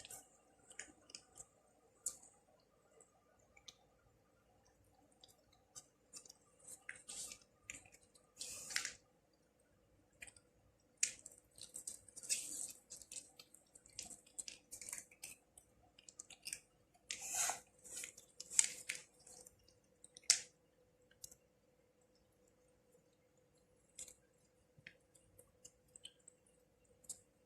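A cat eating, with irregular faint chewing and smacking clicks that come in clusters with short pauses between.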